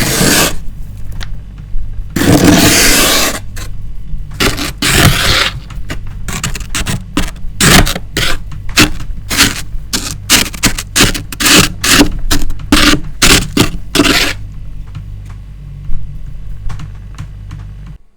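Frost being scraped off the inside of a freezer: a few long scrapes, then a run of quick short strokes, two or three a second, which stop about four seconds before the end.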